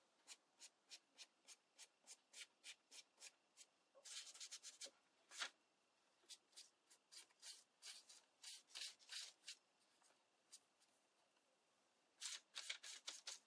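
Faint, quick taps and brushing of a flat paintbrush dabbing paint on a paper plate and onto paper petals. It goes at an even three or so taps a second at first, then in irregular bunches with a pause near the end.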